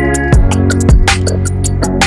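Background music: an electronic track with a steady drum beat, ticking hi-hats and sustained bass notes.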